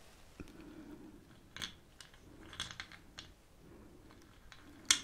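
Hands handling small objects on a table: scattered soft clicks and crinkles, with one sharp, louder click near the end.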